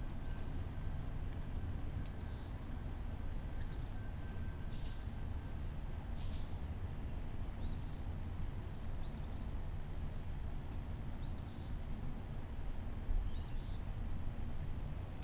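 Outdoor yard ambience: short, faint high bird chirps every second or two over a steady high-pitched hum and a low rumble.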